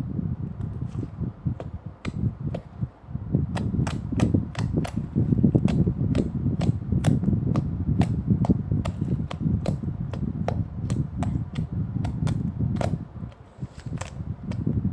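Slime being squeezed, stretched and folded by hand: a steady low squish with many sharp clicking pops of trapped air, about two or three a second.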